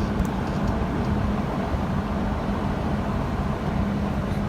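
Steady low mechanical hum and rumble, with a faint steady tone running through it.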